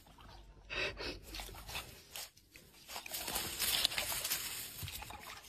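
Soft, irregular crunching and rustling of dry grass and twigs, the crackle of a small animal moving in them.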